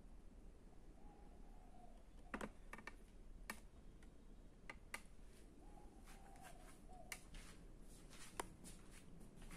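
Faint, irregular clicks and taps over near-silent room tone, a few louder ones standing out among many fainter ones toward the end.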